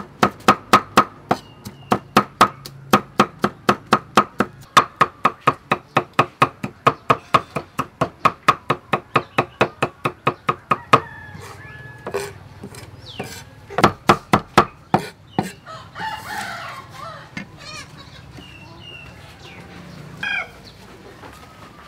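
Cleaver chopping on a thick wooden chopping block, mincing garlic: a rapid, even run of about four knocks a second for the first half, then a few scattered chops. In the second half, birds calling.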